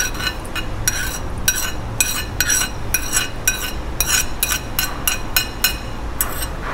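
A metal spoon clinking against a plate and a stainless steel mixing bowl as egg yolks and diced vegetables are scraped off the plate into the bowl. The clinks are short and ringing, irregular, about three a second.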